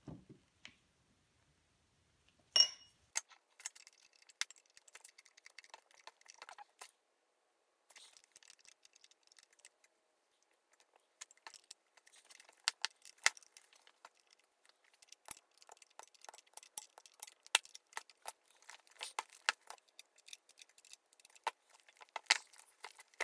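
Wrench and metal parts clinking and rattling as the mill's table-feed motor is bolted down onto its housing: one sharp ringing metallic clink about two and a half seconds in, then many irregular light clicks with short pauses between them.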